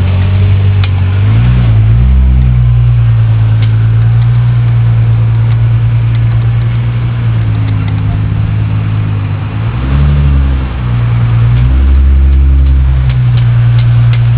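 Nissan GT-R engine running at idle, with the revs raised and let fall briefly about a second in and twice more near the end.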